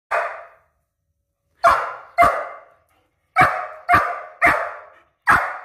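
A dog barking loudly at a closed door: seven sharp single barks, several in quick pairs, asking to be let back inside.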